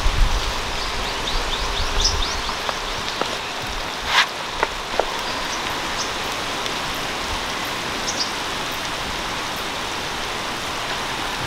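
Shrimp sizzling in butter in a wok over a wood fire: a steady hiss, with a few sharp crackles about four and five seconds in.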